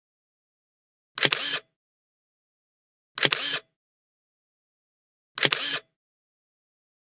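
Camera shutter clicking three times, about two seconds apart. Each shot is a quick double click with a short tail, repeated identically each time.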